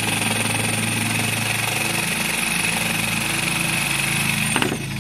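Jigsaw cutting through a Trex composite decking board, running at a steady speed, then stopping near the end as its pitch drops away.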